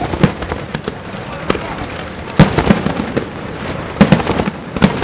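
Fireworks display: a rapid series of aerial shell bursts and launch bangs, irregularly spaced, the loudest about two and a half seconds in and again near the end.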